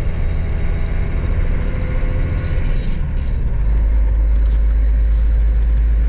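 A truck's engine and road noise heard from inside the cab while driving: a steady low drone that evens out about halfway through.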